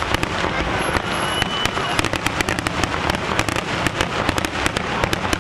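Fireworks finale barrage: aerial shells bursting in quick succession, many sharp bangs and crackles each second with no pause between them.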